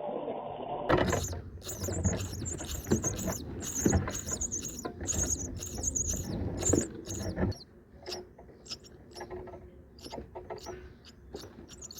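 Brahminy starlings making high, squeaky calls in quick succession over a low rumbling noise. About two-thirds of the way through, the rumble drops away and only fainter, scattered squeaks remain.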